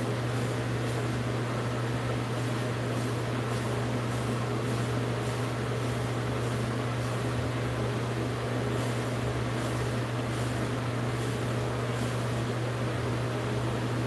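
Hairbrush strokes through short wavy hair: a quick, even run of soft swishes, about two or three a second, that stops near the end. Under it runs a steady low hum.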